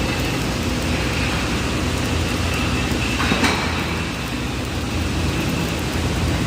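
Steady hiss of a welding arc over the low hum of the welding machine, with one short sharp clink about three seconds in.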